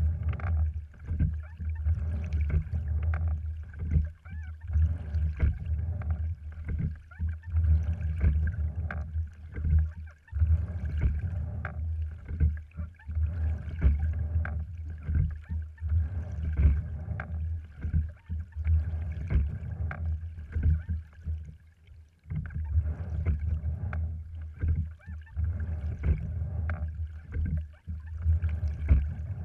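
A cedar-framed, cloth-covered Ruth rowing wherry moving under oars: water rushing and gurgling along the hull as a low rumble, with frequent clicks and knocks from the oars and sliding seat, heard through a camera mounted on the boat.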